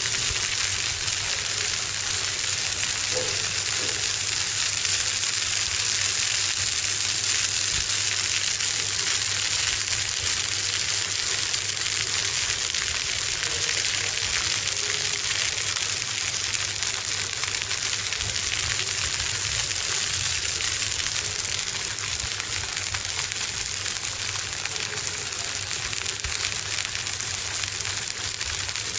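Fish frying on a hot flat-top grill: a steady sizzle with fine crackling throughout.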